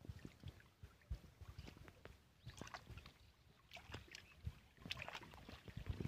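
Near silence: faint open-air ambience with light low rumbles and scattered faint ticks.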